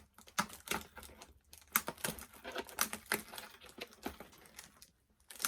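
Irregular sharp clicks and small plastic rattles as scissors work at the plastic fasteners holding a doll in its box, with a short pause near the end.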